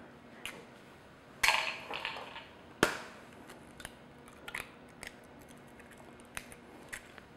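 Raw eggshells being cracked open by hand: a short crunch about a second and a half in, a sharp crack near three seconds, then a few light clicks of shell.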